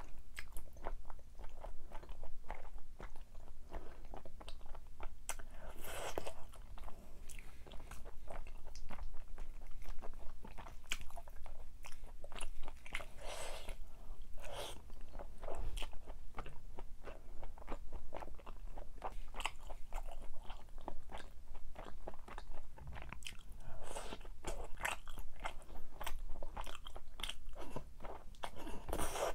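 A person chewing crunchy food close to the microphone: dense, irregular crunching all through, with louder spells about 6, 13 and 24 seconds in.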